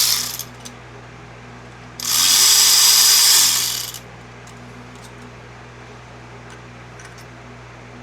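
A cordless power tool runs for about two seconds, spinning up and back down, on a fastener that is still tight. A shorter burst comes just at the start, over a steady background hum.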